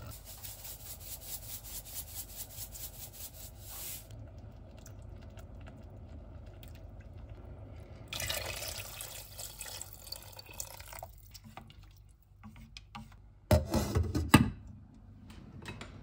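Water poured from a glass container into a pot of tomato sauce, splashing and pulsing rapidly, about five times a second, then poured again after a pause. Near the end a short burst of loud knocks and clatter.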